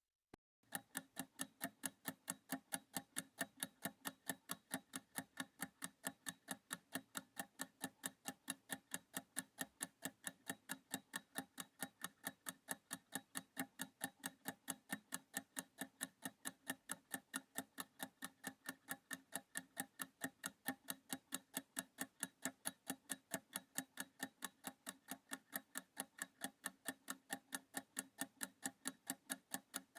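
Steady clock-like ticking of a countdown timer sound effect, about three ticks a second, marking a 30-second practice period.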